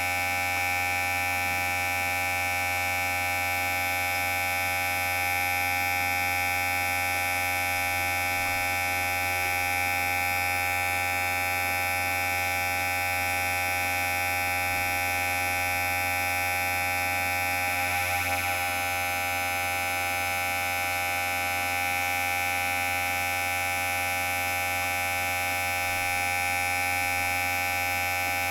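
Electric hair clipper running with a steady buzz, its pitch wavering briefly about eighteen seconds in.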